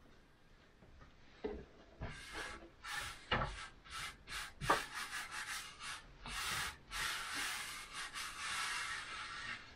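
Hands folding and pressing the dough edges of a minced-meat pide on a floured wooden board: a string of short rubbing and brushing strokes starting about a second and a half in, running into a longer stretch of continuous rubbing near the end.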